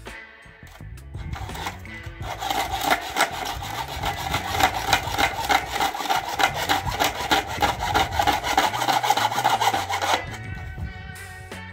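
Hacksaw blade cutting through the wall of a plastic electrical junction box in quick back-and-forth strokes, several a second, starting about two seconds in and stopping near the end. Background music plays underneath.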